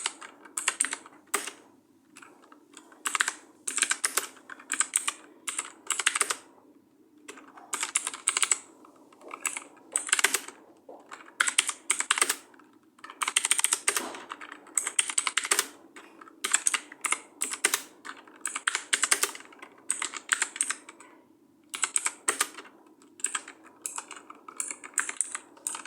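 Typing on a computer keyboard: fast runs of key clicks in bursts of about a second, with short pauses between them.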